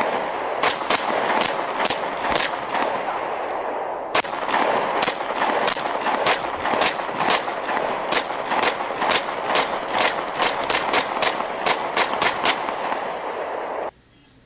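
Rapid gunshots, sharp cracks fired two to four a second over a steady hiss. The firing pauses briefly about two and a half seconds in, then quickens near the end, and everything cuts off abruptly just before the end.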